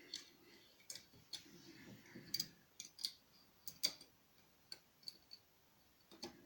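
Faint, irregular metallic clicks of an overlifter tool working inside a lever lock as the levers are lifted.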